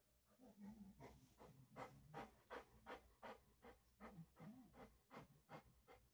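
Mastiff-type dog panting faintly, in quick even breaths about two or three a second.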